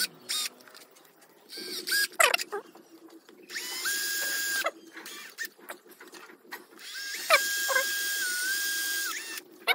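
Bosch cordless drill running in two bursts, a short one about four seconds in and a longer one about seven seconds in, boring holes through a plastic motorcycle visor.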